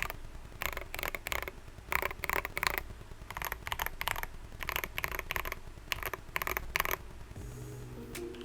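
Typing on an Akko Mod001 mechanical keyboard fitted with Dareu switches: quick irregular runs of key clacks. Music comes in near the end.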